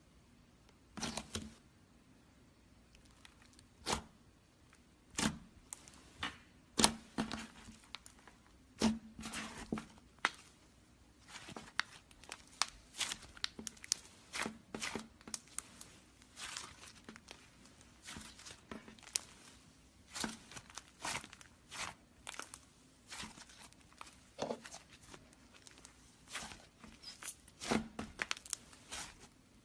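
Slime being squished and stretched, giving irregular sticky pops, crackles and tearing sounds, some single and some in quick clusters.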